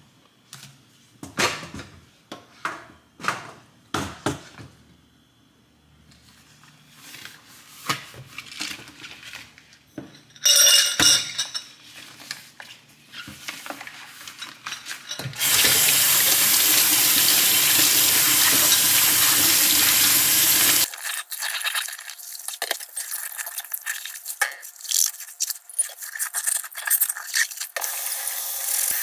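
Dishwashing at a stainless steel kitchen sink: light knocks and rustles of rubber gloves being pulled on, then the tap running steadily for about five seconds, followed by sponge scrubbing and the clink of glassware.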